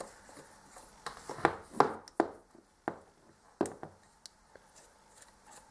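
Short metallic clicks and scrapes from hands and a tool working at a screw on an all-steel Neumann Rogers & Spencer blank-firing revolver. There are about half a dozen sharp ticks, irregularly spaced through the middle of the stretch.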